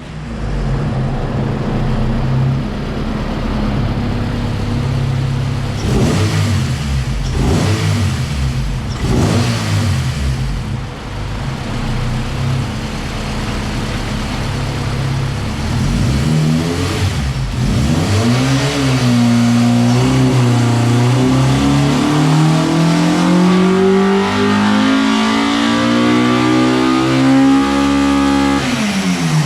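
Honda B16B DOHC VTEC four-cylinder in a Civic EK running on a chassis dyno: it runs steadily, the revs rise and fall a few times, then from about eighteen seconds in it makes one long pull with the pitch climbing steadily for about ten seconds before the throttle is cut sharply near the end.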